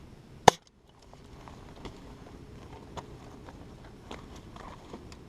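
A single sharp pellet gun shot about half a second in, followed by faint scattered clicks and rustling.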